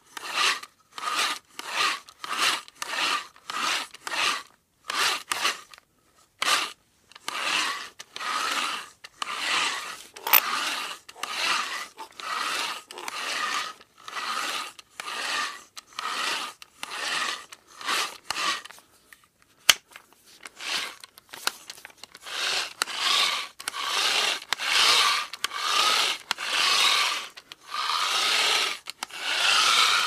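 Manual hand drill boring, a rasping grind in repeated strokes. The strokes are short and come about two a second at first, then grow longer and run closer together, with a brief pause and a sharp click about two-thirds of the way through.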